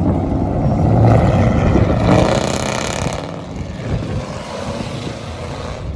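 A car's loud exhaust under throttle, swelling to its loudest for about two seconds from about a second in, then easing off.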